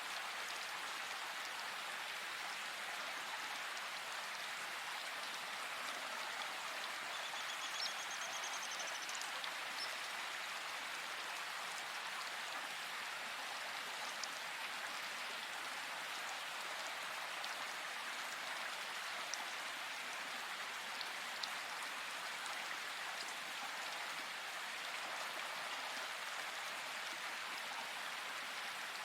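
Steady hiss of rain falling, with a few faint drip-like clicks. A brief high bird trill is heard about seven seconds in.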